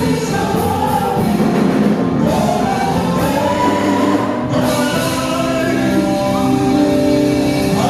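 A vocal group sings a gospel praise song into microphones, backed by a live band, with the voices in harmony over a continuous accompaniment.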